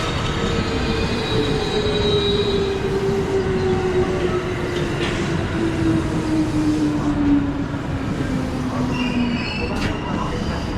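Electric commuter train pulling into the platform, its motor whine falling steadily in pitch for about nine seconds as it slows, over a constant rumble of wheels on rail. A thin high squeal is heard near the start and again near the end.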